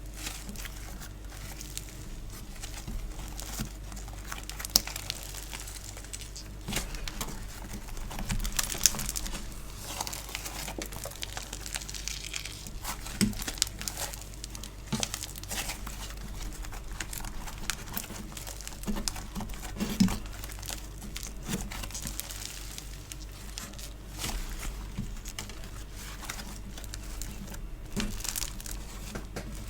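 Hands squishing and pulling sticky store-bought craft compound (foam clay and slime), making a dense, irregular stream of small crackles and sticky pops. A few sharper snaps stand out, about five, nine, thirteen and twenty seconds in.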